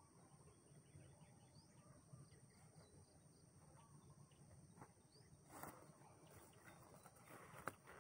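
Near silence: faint rural outdoor ambience with a few soft high chirps, then some rustling and a single sharp click near the end.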